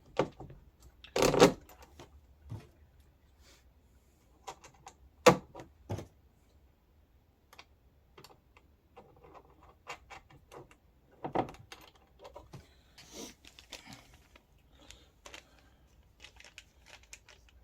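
Irregular clicks and knocks of parts being handled and fitted: a metal rod with washers being threaded through a shock absorber on a plastic kids' ride-on quad. The loudest knocks come about a second in and about five seconds in.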